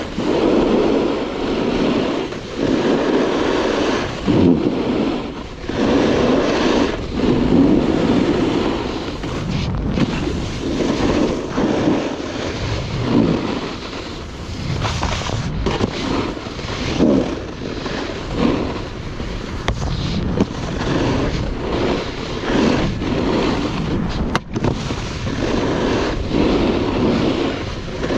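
Snowboard sliding and scraping over snow, with wind rushing over the microphone. The rush swells and fades every second or two, with each turn.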